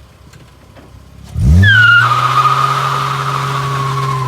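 A vehicle accelerating hard in a drag race. About a second and a half in, the engine note sweeps up sharply, then holds high and steady with a high whine over it.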